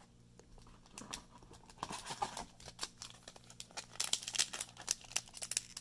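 Foil Magic: The Gathering booster pack wrapper crinkling and crackling as it is handled and pulled open, starting about a second in and growing busier toward the end.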